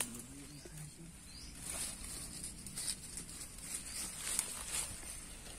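Scraping and rustling of soil, roots and dry leaves as a tree's roots are dug out by hand, with a few sharper scrapes, over a steady high insect buzz.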